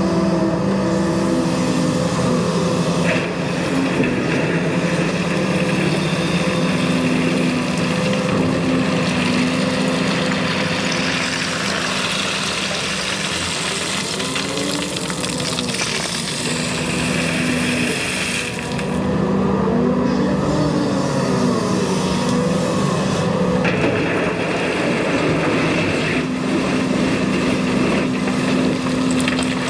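Cat 335 excavator's diesel engine running steadily under working load, with the hydraulics whining in rising and falling glides as the machine moves.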